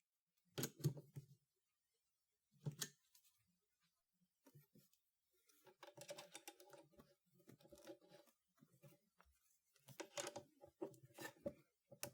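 Faint, irregular clicks and light knocks of small metal parts and tools being handled on a workbench, with a slight ringing in the later clusters.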